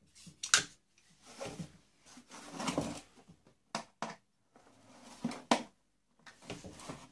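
Plastic motor housing of an industrial vacuum cleaner being handled and shifted on a wooden floor with pliers in hand: a series of sharp clicks and knocks, with scraping and rustling in between.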